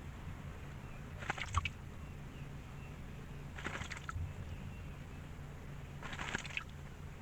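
Birds at a small drinking pool: three short, scratchy bursts about two and a half seconds apart, over a steady low hum.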